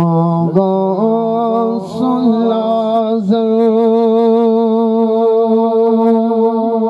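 A man singing a naat into a microphone: after stepping up in pitch during the first second, he holds one long drawn-out note with a slight waver.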